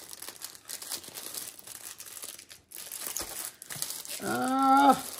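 Clear plastic bag of a diamond-painting kit crinkling and rustling as it is handled and opened. Near the end there is a brief wordless vocal sound from a person.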